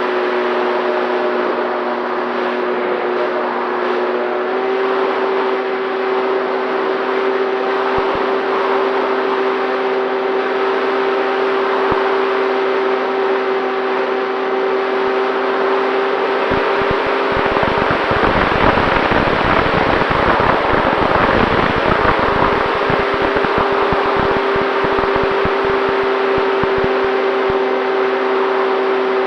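Electric motor and propeller of an FX-79 flying-wing RC plane, heard from on board: a steady whine that steps up slightly in pitch about four seconds in. From about seventeen to twenty-three seconds the whine drops away under a louder rush of wind with low buffeting, then returns.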